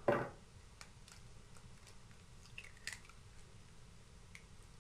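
An egg's shell cracking open with a short crunch right at the start, then faint clicks of the shell halves as the egg white is separated from the yolk.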